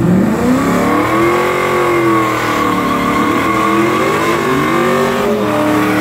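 Fourth-generation Chevrolet Camaro's engine revving hard and held at high revs during a burnout, rear tyres spinning and smoking. The pitch climbs steeply at the start, wavers as the throttle is worked, and dips then climbs again about four to five seconds in.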